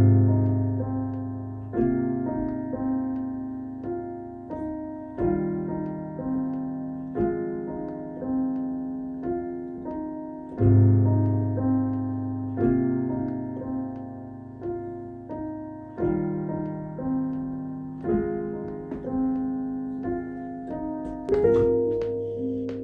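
Piano-sounding keyboard playing a slow chord progression, a new chord struck every one to two seconds and left to ring and fade, with a few quicker, higher notes near the end.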